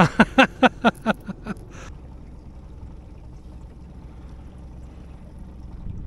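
Outboard motor running steadily at trolling speed, with water moving along the boat's aluminium hull. In the first second and a half a voice makes a quick run of short bursts that fade away.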